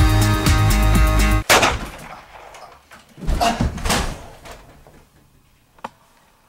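Music with a steady beat cuts off abruptly about a second and a half in, with a sharp bang. About two seconds later come two louder crashing bangs that fade away, and a single sharp click follows near the end.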